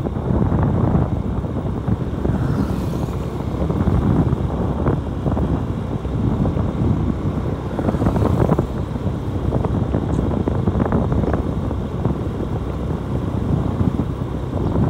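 Wind rushing and buffeting over the microphone on a moving motorcycle, with the low rumble of the ride underneath; it surges and eases without a break.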